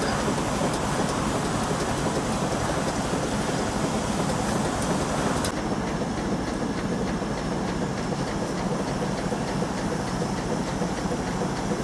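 A steam launch's engine running steadily under way, with a regular beat. About halfway through, the sound changes suddenly and becomes duller, with less hiss.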